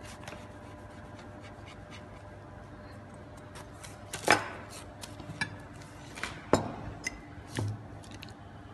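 Utensils clinking against dishes while food is handled: scattered light clicks and a few sharper taps. The loudest taps come about four seconds in, about six and a half seconds in, and just before the end.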